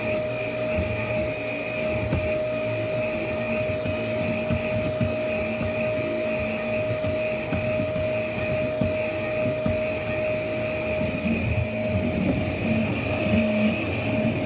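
Shark upright vacuum cleaner running steadily, its motor giving a constant whine over the rush of air.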